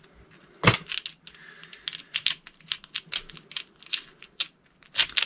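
Small metallic clicks and ticks as a washer and nut are fitted by hand onto the threaded axle of a 48 V 500 W scooter hub motor. One louder click comes about two-thirds of a second in, followed by a run of quick light ticks.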